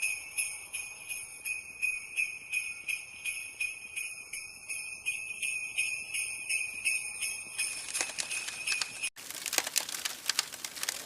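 Sleigh bells shaken in a steady rhythm, their bright jingle ringing on. About eight seconds in they stop, and a cluster of chiming strokes with a rising sweep leads into music.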